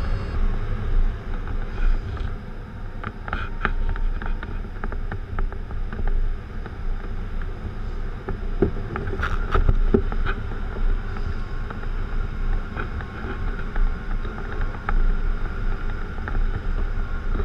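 Airflow rushing past the canopy of a Schempp-Hirth Discus glider, heard from inside the cockpit, with scattered clicks and knocks from the airframe and a faint steady high tone in the second half.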